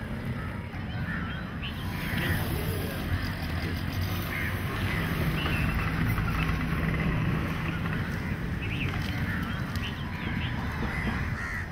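Birds calling again and again in short calls over a steady low rumble of background noise.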